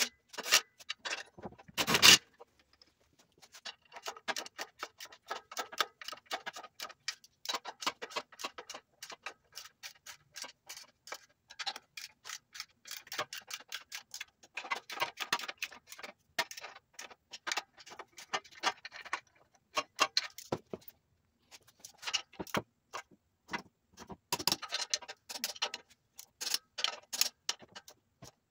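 Ratchet wrench clicking in quick runs with short pauses, tightening the clutch pressure plate bolts to the flywheel. A sharp knock about two seconds in.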